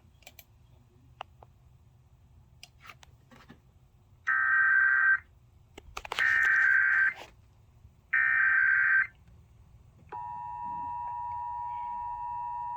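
Emergency Alert System Required Monthly Test broadcast over FM radio: the SAME header's digital data sent three times, as three loud one-second screeching bursts about a second apart. About ten seconds in, the steady two-tone EAS attention signal (853 and 960 Hz) begins.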